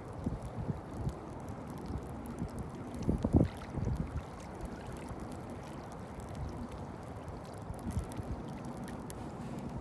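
Water lapping against a fishing boat's hull, with wind buffeting the microphone. A few dull knocks stand out about three seconds in, and again around four seconds.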